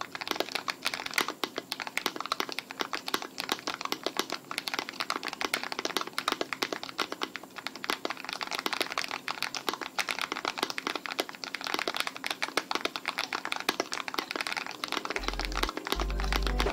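Steady, fast typing on a Tofu60 custom 60% mechanical keyboard with lubed Evil Airy tactile switches on an aluminium plate, a dense run of keystroke clacks. Low bass notes of music come in about a second before the end.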